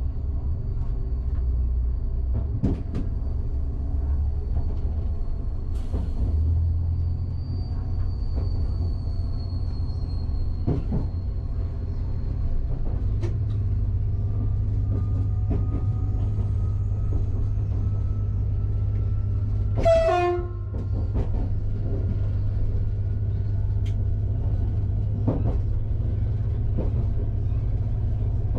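SNCF AGC multiple unit heard from its cab as it accelerates out of the station: a steady low traction rumble whose note steps up about halfway through, with scattered clicks of the wheels over rail joints and points. About two-thirds of the way in, the train's horn gives one short toot.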